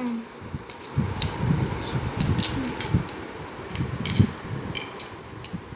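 Small wooden jigsaw pieces clicking and knocking against each other and a tiled floor as they are picked up, slid and fitted, in scattered taps over a steady background noise.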